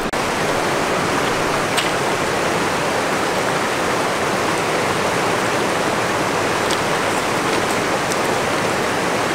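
Steady rush of the Green River running over rapids.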